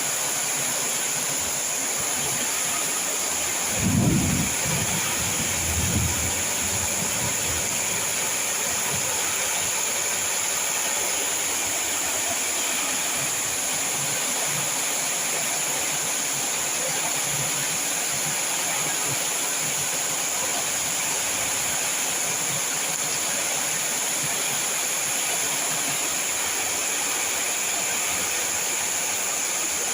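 Heavy rain falling in strong wind, a steady unbroken hiss. Two brief low rumbles about four and six seconds in.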